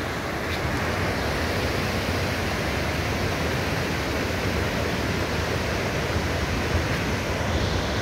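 Steady rushing of a waterfall pouring into a river pool, an even noise that does not change.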